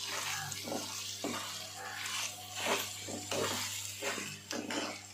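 A spoon stirring and scraping through thick hog-plum pickle masala in a nonstick frying pan, a string of short scrapes and knocks about every half second over a steady low hum.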